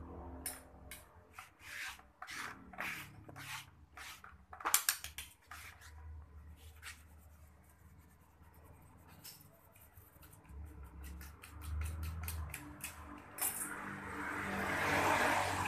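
Metal hand tool scraping and clicking against the cylinder and head of a Honda Spacy 110 scooter engine, in short irregular strokes, with a longer rough scrape near the end.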